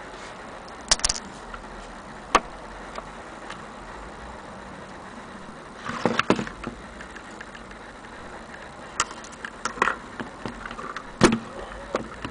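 Knocks and clicks from a wooden-cased mantel clock being handled and turned over on a wooden table. A few sharp ones come about a second in, a cluster around six seconds and a loud one near the end, over a steady hiss.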